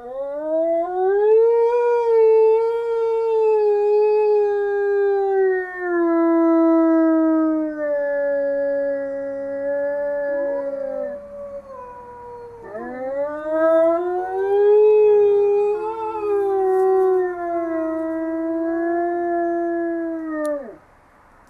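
Gray wolves giving low-throated howls: two long howls, one after the other. The first rises and then slides slowly down over about ten seconds. The second starts about twelve seconds in, rises, holds, and cuts off just before the end.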